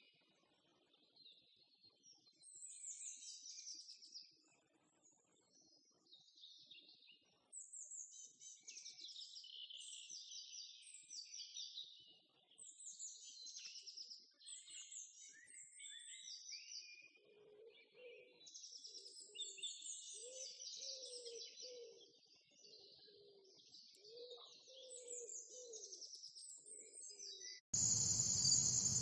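Songbirds chirping and singing in many short overlapping phrases, with a lower repeated call joining in for several seconds past the middle. Near the end it cuts abruptly to a louder, steady insect chorus.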